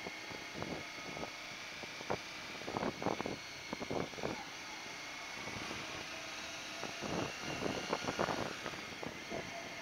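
A motorcycle riding along at low speed: a steady engine and road noise with a thin high whine, broken by irregular short knocks.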